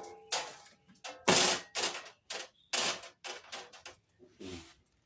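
Sheet-metal glove dispenser being set down and shifted around on a steel tool cart: a string of about eight sharp metal clanks and knocks at uneven intervals, some with a brief metallic ring.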